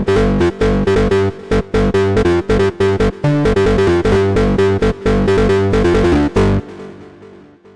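Integrate virtual analog synthesizer playing a bass preset: a fast repeating line of short notes with a strong low end. About six and a half seconds in the pattern stops and the last note fades away.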